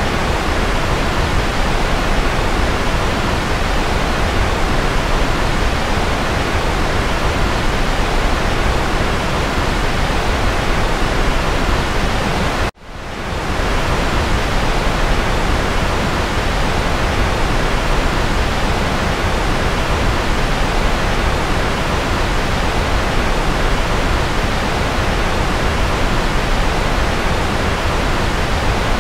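Steady white noise, an even hiss spread across all pitches. It cuts out abruptly for a split second about 13 seconds in, then fades back up within about a second.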